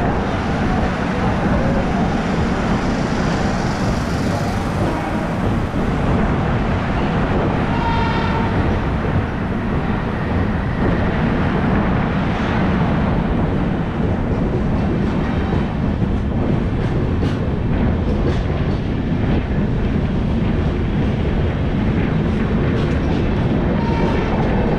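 Passenger train coach pulling out of a station and gathering pace, heard from the open coach door: a steady, loud rumble of wheels on rail with rushing air. Sharp clicks from rail joints and points become frequent in the second half.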